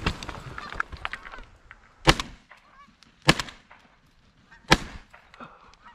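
Three shotgun shots, a little over a second apart, fired at geese coming into a decoy spread, each ringing out briefly, with goose honking between the shots.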